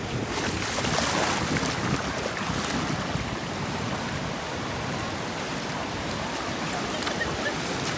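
Small waves washing in over wet sand: a steady hiss of surf that swells about a second in, with wind rumbling on the microphone.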